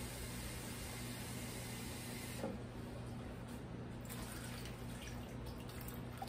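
Kitchen faucet running into a glass, shut off about two and a half seconds in; a little water is then poured from the glass into a foil-lined metal roasting pan, faintly.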